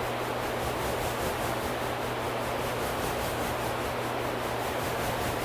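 Steady radio hiss with a faint low hum: the dead air of a NOAA Weather Radio broadcast between spoken announcements.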